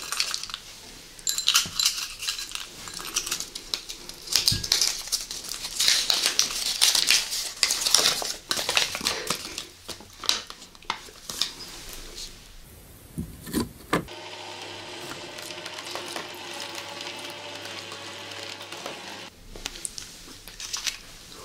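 Paper cards crinkling and being handled close to the microphone, with many small clicks and rustles, for about fourteen seconds. Then a different, steady sound follows for about five seconds.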